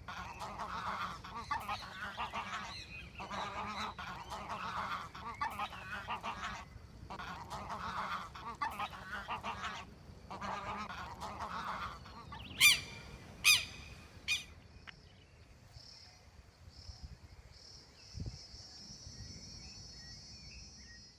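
Geese honking in a noisy, overlapping chorus for about twelve seconds, then two loud single honks about a second apart, after which the calling dies away.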